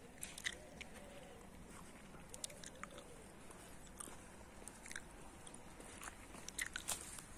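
Faint footsteps crunching on a path strewn with dry fallen leaves, heard as scattered, irregular crunches and clicks.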